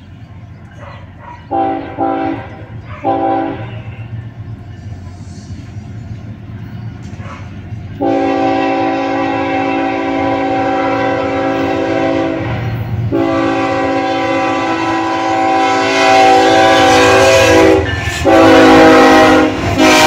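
Horn of a Kansas City Southern de México GE ES44AC diesel locomotive, a chord of several notes. It gives two short blasts near the start, then from about eight seconds in a series of long blasts with brief breaks, growing louder as the locomotive approaches over a low rumble of the train.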